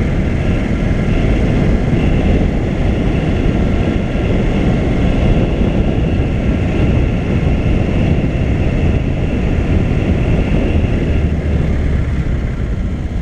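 Classic Skoda 1200 saloon driving at a steady speed, heard from a camera on its bonnet: a loud, steady rumble of wind buffeting, engine and road noise, with a faint high whine over it.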